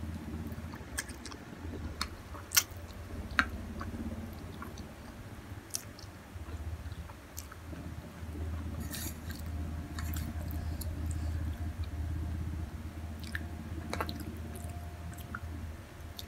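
A person chewing a mouthful of Samyang spicy instant noodles close to the microphone, with scattered sharp clicks, two of them louder a few seconds in.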